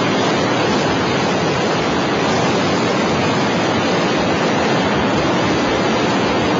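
Several high-rise buildings collapsing together in a controlled implosion demolition, heard as a dense, even rush of noise at a steady level.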